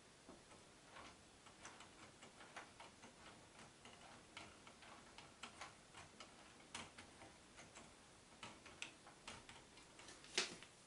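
Faint, irregular clicking and ticking from the plastic Technic gears and linkages of the LEGO Icons 10318 Concorde's synchronised landing gear mechanism as it retracts the gear, with one louder click near the end.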